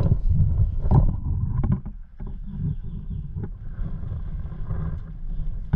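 Choppy low rumble and rustle on a body-worn action camera's microphone, with a few sharp clicks about a second in and again near a second and a half later.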